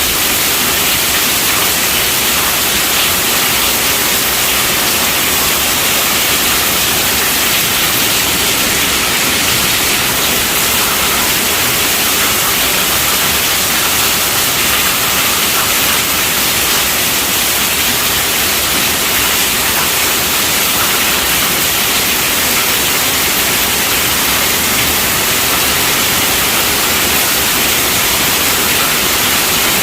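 Heavy rain falling on a tent roof: a steady, dense hiss that does not let up.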